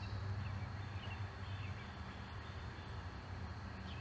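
Car engine idling with a steady low hum. Faint bird chirps sound now and then in the background.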